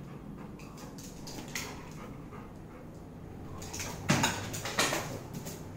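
Yellow Labrador retriever giving a couple of short whimpers about four and five seconds in, after a quieter stretch of faint clicks.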